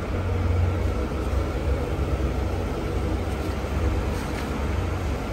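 Engine idling, a steady low rumble.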